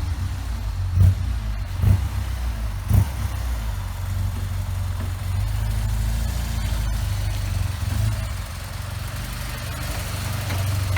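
An engine running steadily at a low pitch, with a few louder pulses in the first three seconds.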